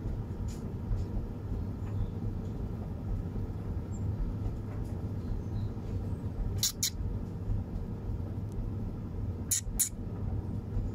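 Steady low outdoor rumble of background noise, with two pairs of short, sharp clicks, one about two-thirds of the way through and one near the end.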